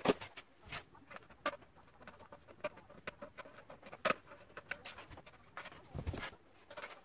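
Scattered clicks, taps and knocks of dirt-bike parts and hand tools being handled during reassembly, with a sharper click at the start and another about four seconds in, and a duller thump around six seconds.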